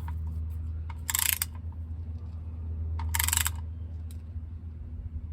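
Ratchet wrench clicking in two short runs, tightening the oil drain plug back in, over a steady low hum.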